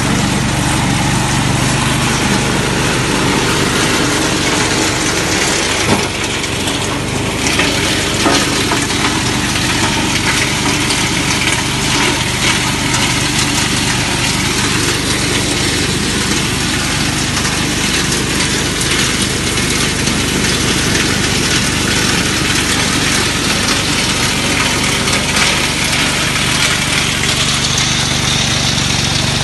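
Small single-cylinder petrol engine of a walk-behind hazelnut harvester with a rotating sweeper brush, running steadily under load while the brush sweeps leaves, dirt and nuts off the ground with a constant rushing noise. There is a brief knock and a short dip in level about six seconds in.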